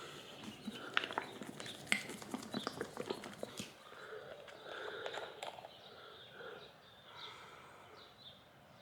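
A plastic bottle of car wash soap being shaken and handled: a run of irregular clicks and knocks in the first few seconds, then fainter handling sounds.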